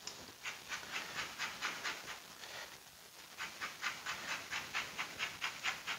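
Lemon being grated on a small metal grater: quick rasping strokes, about five a second, with a short break a little before halfway.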